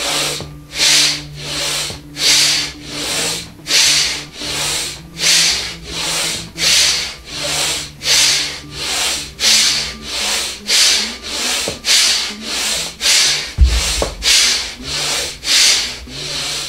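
A man's rapid, forceful rhythmic breathing in dynamic breathwork, about two hard rushes of breath a second, each a hissing push of air. One low thump comes about fourteen seconds in.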